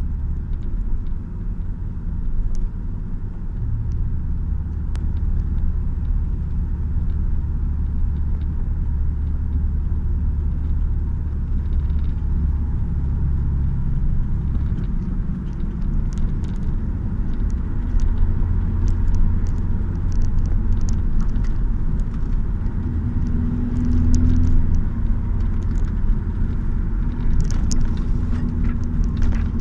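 Classic car's engine and road noise heard from inside the cabin while driving: a steady low rumble that swells and eases with the throttle. Small clicks and rattles come through now and then, mostly in the second half.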